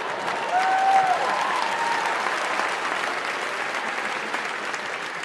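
Large theatre audience applauding after a punchline, with one voice cheering briefly about half a second in; the applause peaks around a second in and then slowly eases off.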